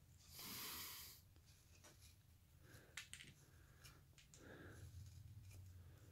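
Faint cuts of a small hand gouge slicing basswood. There is one short scraping shave about half a second in and a light click near three seconds.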